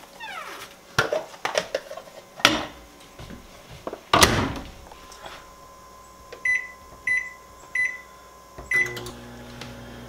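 Over-the-range microwave oven being loaded and started: a plastic tub clatters onto the turntable and the door shuts with a loud knock about four seconds in. Four short keypad beeps follow, and with the last one the oven starts running with a steady low hum.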